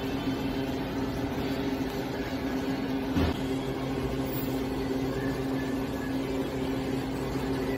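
Steady machine hum of a shop interior, with held low tones, and a single short knock about three seconds in.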